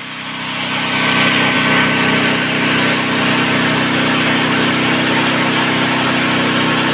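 Generator engine running steadily and noisily, a loud even drone that grows over the first second and then holds.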